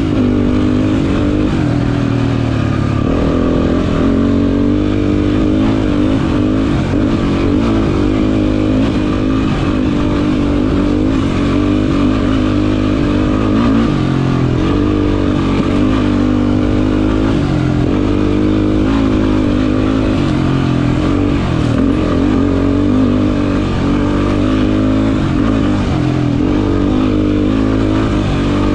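Race quad's engine running hard, its pitch rising and falling repeatedly as the throttle is worked and gears change.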